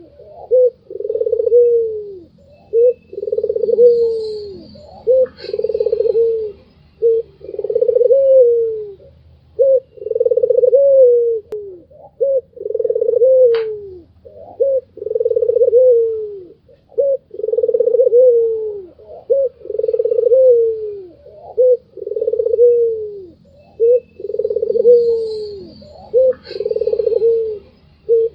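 White Barbary dove (puter putih) cooing over and over: low coos, each about a second long and falling at the end, about every two seconds, with short notes in between. Faint high chirps come in twice.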